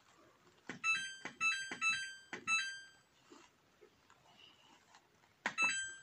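Samsung WF6520N7W washing machine's control panel beeping as its buttons are pressed to set a programme. There are four short electronic beeps in quick succession in the first few seconds and one more near the end, each starting with the click of a button.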